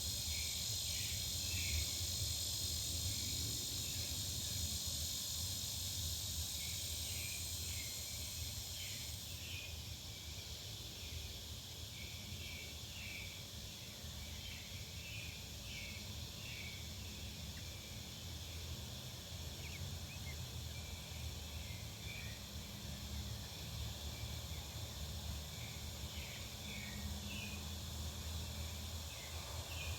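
Residential back-yard ambience: a steady high insect chorus of crickets, thinning about nine seconds in, with many small bird chirps scattered throughout and a low steady rumble underneath.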